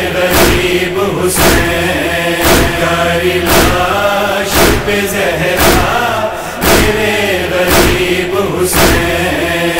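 A chorus of voices chanting a noha lament in a slow wavering drone, over a steady beat of heavy strokes about once a second in the manner of matam chest-beating.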